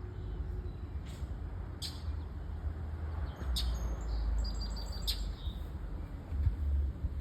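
A bird's short, sharp chirps, a few scattered calls and a quick run of repeated notes a little past the middle: territorial scolding aimed at a cat. A low rumble runs underneath.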